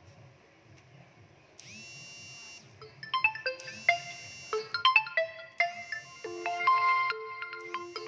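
A short bright chime about a second and a half in, then a quick marimba-like ringtone melody that starts about three seconds in and keeps going.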